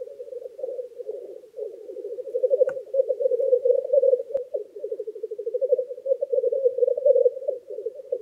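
Male black grouse giving their continuous bubbling lek song, getting louder about two and a half seconds in.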